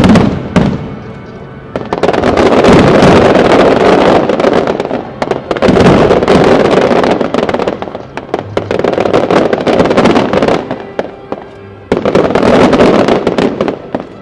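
Aerial firework shells bursting in loud volleys that come in several waves of a few seconds each, with music playing underneath. The bursts die away just before the end.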